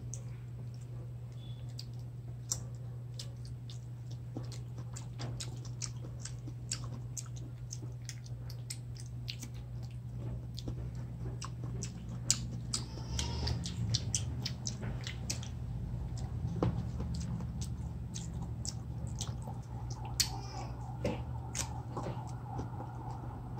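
Chewing and many irregular mouth clicks of people eating ripe mango slices dipped in shrimp paste, over a steady low hum.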